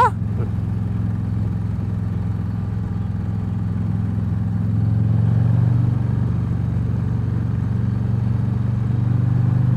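Harley-Davidson Sportster's V-twin engine running steadily under way at cruising speed, heard from the rider's seat, swelling slightly about five seconds in.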